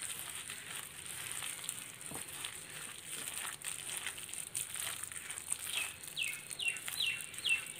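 Hands squishing and mixing thick idli batter with chopped onion, chillies and semolina, a soft wet crackling. From about two-thirds of the way in, a bird calls over it with short falling chirps, about two a second.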